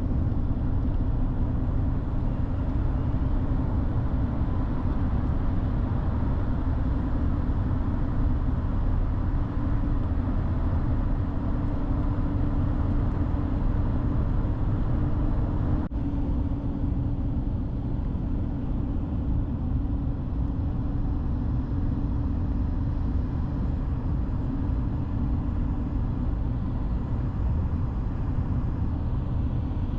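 Steady road and engine noise inside a truck cab while driving: a constant low drone with a steady hum, and a brief break about halfway through.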